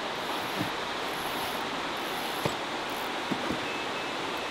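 Carp rod being set onto its electronic bite alarm: a few light knocks, then three faint short beeps from the alarm near the end, over a steady rushing background noise.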